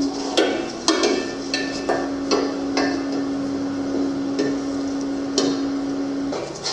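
Hand tools tapping and knocking on parts during a mini dirt bike's workshop restoration: a string of sharp, separate knocks over a steady low hum that stops near the end.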